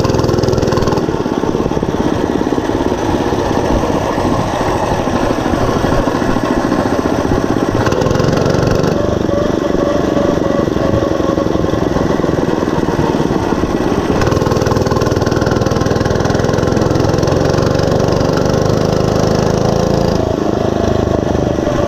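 Monster Moto 105 mini bike's small single-cylinder four-stroke engine running steadily while riding. Its pitch climbs gradually in the last third as the bike picks up speed.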